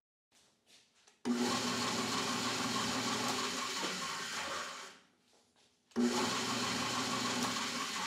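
Powermatic 1150 drill press running while drilling into a wood block, heard twice: it cuts in suddenly about a second in, dies away near five seconds, and cuts in again at about six seconds.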